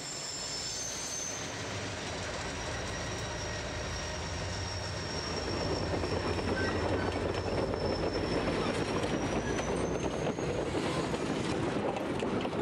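Southern Pacific passenger train rolling past, its wheels running on the rails with a thin high squeal above the noise. It grows louder about halfway through, with faint wheel clicks over the rail joints near the end.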